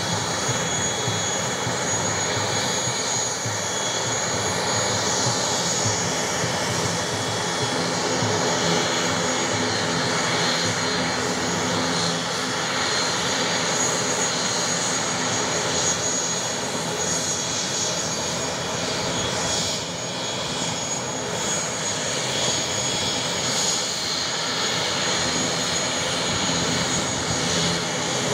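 Turboprop airliner engines running steadily, a continuous high whine over propeller noise, from a Wings Air ATR 72 on the apron.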